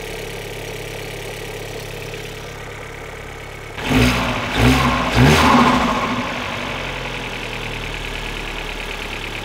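Opel Astra OPC's turbocharged four-cylinder engine idling steadily, running well again on new spark plugs, which cured its stalling fault. About four seconds in it is revved three times in quick succession, then settles back to idle.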